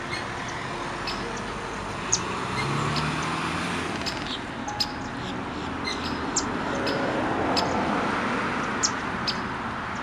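Steady outdoor background noise with short, high bird chirps scattered through it.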